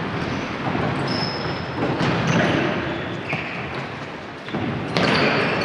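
Futsal play on a wooden gym floor: the ball being kicked and bouncing, with sharp knocks about two seconds in and near the end, and short high squeaks of sneakers on the boards.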